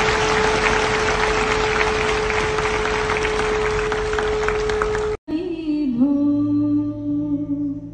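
A crowd applauding, with one steady held tone above the clapping, cut off abruptly about five seconds in. A voice then sings a slow, held chant over a low drone.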